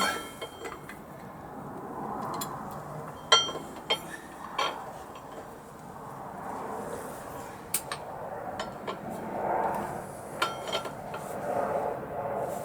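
Scattered metallic clinks and knocks from tools and parts as a motorcycle rear wheel is worked back into place. The sharpest knock, with a short ring, comes about three seconds in, and lighter ones follow.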